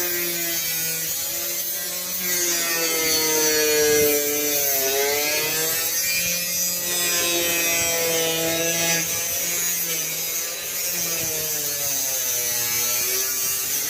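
Power cutting tool slicing through a sheet of metal roofing: a super loud, steady whine with many overtones that sags and recovers in pitch several times as the cut loads it, then stops just at the end.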